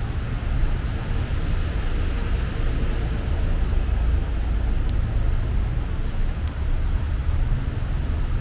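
Steady city street traffic noise: a continuous low rumble and hiss of passing road vehicles.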